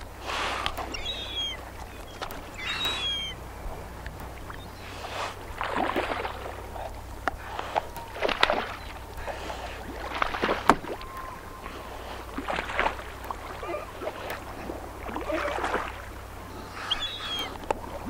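Brown bear feeding on fish: repeated wet chewing, crunching and tearing sounds every second or two. A few short, high, falling bird calls come near the start and again near the end, over a steady low rumble.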